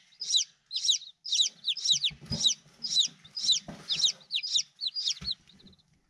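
Five-day-old chick peeping: an even run of short, high, downward-sliding peeps, about two to three a second, that stops near the end. A few faint dull thumps sound under it.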